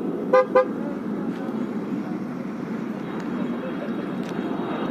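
Two quick toots of a vehicle horn about half a second in, over the steady rumble of the Boeing 777's jet engines during its low pass.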